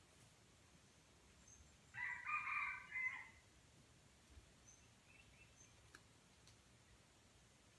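Red junglefowl rooster crowing once, a short crow of a little over a second about two seconds in.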